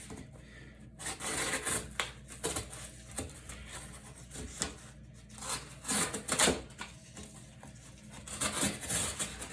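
Folding knife blade slicing through single-wall corrugated cardboard in several scraping, sawing strokes, the loudest about six seconds in.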